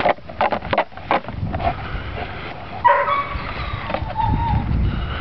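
A German Shepherd shaking and tugging a rag toy in dry grass: quick rustles and clicks at first, then a low rumble on the microphone, with a short dog yelp about three seconds in.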